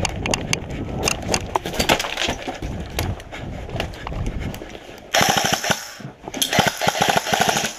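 Airsoft gunfire: scattered single pops, then two rapid full-auto bursts from an airsoft rifle, the first about five seconds in and the second about a second later, each lasting under a second and louder than everything before.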